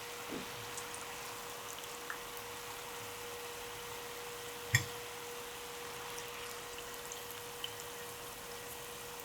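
Sesame balls deep-frying in hot vegetable oil: a steady sizzle with scattered small pops and ticks, one sharper pop about halfway through.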